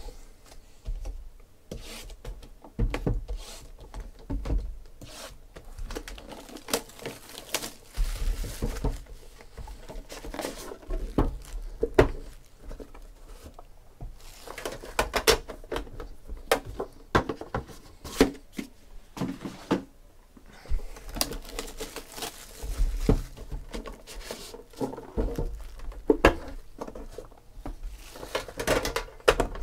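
Hands unsealing and opening Panini Immaculate Football card boxes: cardboard lids and inner trays knocking and sliding, and plastic wrapping crinkling and tearing, in an irregular run of clicks, taps and rustles.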